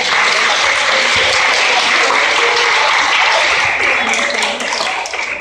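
A crowd of schoolchildren clapping, with voices mixed in, right after the band stops playing; the applause dies away near the end.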